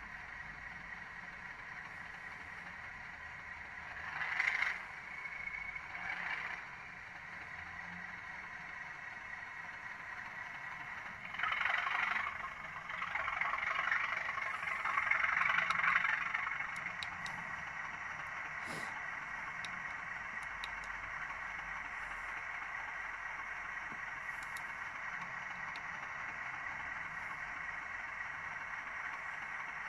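Sound-fitted OO gauge Class 37 model diesel locomotive running slowly under DCC control, its small onboard speaker playing a steady diesel engine sound. The sound swells louder briefly about four and six seconds in, and again for several seconds from about eleven seconds.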